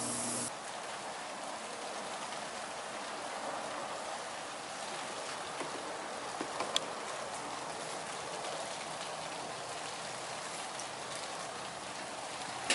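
Steady rain falling, an even hiss. A mini-fridge compressor's steady hum cuts off about half a second in, and a few light clicks come midway.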